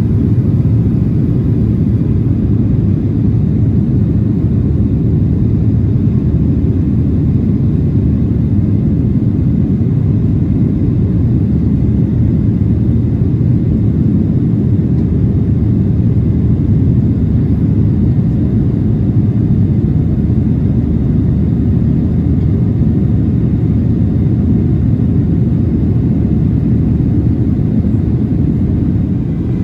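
Steady low rumble inside the cabin of a Boeing 737-700 in flight, heard from a window seat over the wing: its CFM56 jet engines and the rush of air past the fuselage.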